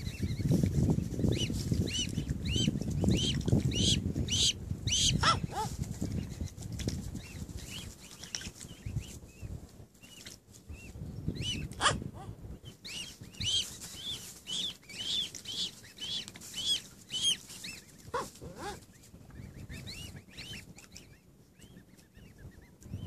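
Newly hatched mute swan cygnets peeping: runs of short, high peeps, a few a second, one run at the start and another about halfway through. A low rumble lies under the first third.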